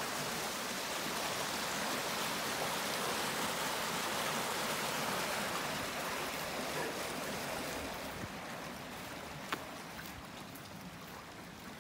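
Swollen rainwater rushing down a stone-lined ditch after a heavy downpour: a steady rush of water that grows fainter from about eight seconds in, with a single sharp click near the end.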